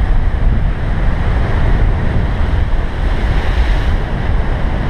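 Heavy Atlantic surf breaking and washing ashore, with strong wind buffeting the microphone; a wave breaks louder about three seconds in.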